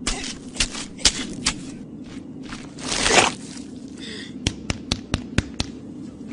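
Scuffle sound effects as a man wrestles a yellow creature: sharp hits and slaps in the first second and a half, a loud rushing swish about three seconds in, then a run of six quick cracks.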